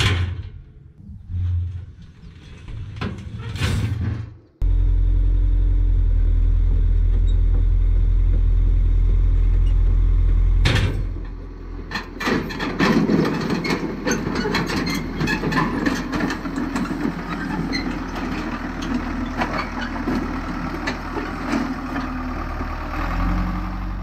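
Steel trailer ramps clanking as they are flipped down, then a Caterpillar D4C bulldozer's diesel engine running with a steady low drone. From about halfway, its steel tracks clatter as it crawls down the trailer ramps.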